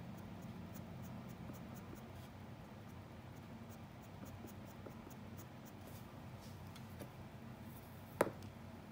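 Faint scratching of pencil lead on paper in short, quick strokes, about four a second, during graphite drawing. A single sharp click near the end.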